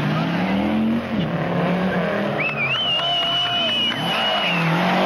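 Rally car engine at speed, its note dipping and climbing again twice, with a high tyre squeal held for about two seconds in the middle.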